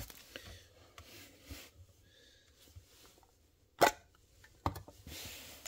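Clear plastic display case of a die-cast model car being handled: a few light plastic clicks and taps, with one sharp click about four seconds in, then a short soft hiss near the end.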